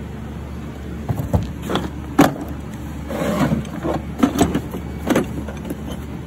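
Hard plastic tool cases and a cloth tool pouch being handled and packed into a toolbox drawer: scattered knocks and clacks with a short sliding rustle, the sharpest knock about two seconds in, over a steady low hum.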